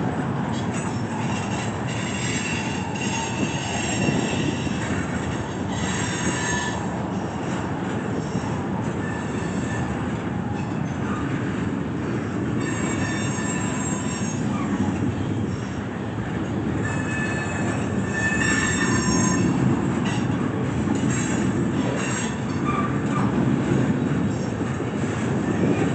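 Loaded freight cars of a steel train rolling past with a steady rumble of wheels on rail. High-pitched wheel squeal comes and goes as the wheels grind through the curve of the wye.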